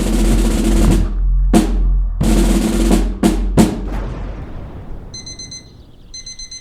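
Loud drum hits with crashing, cymbal-like strikes, a few in quick succession and fading away over about four seconds. Then electronic beeping starts in short bursts about once a second.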